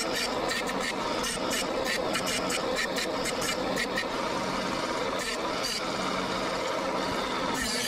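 Small bench belt sander running steadily, with a knife blade touched to the belt in short repeated passes that add a grinding hiss: regrinding the broken tip of a pocketknife blade.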